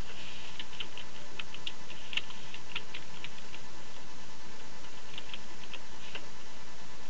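Computer keyboard being typed on: two short, irregular runs of key clicks, the first for about three seconds and another around five to six seconds in, over a steady background hiss with a faint steady tone.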